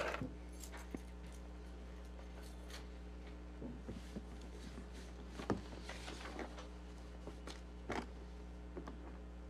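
Quiet room tone: a steady low electrical hum, with a few faint scattered clicks and rustles from papers being handled at the desk.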